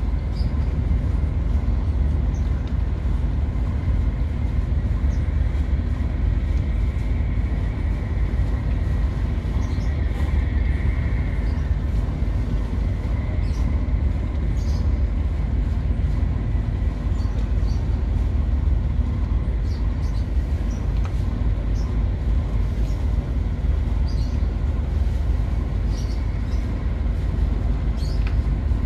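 Car carrier ship's engines running with a deep, steady rumble while it casts off from its berth.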